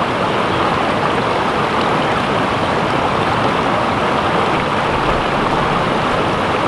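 Shallow creek water rushing steadily over rocks.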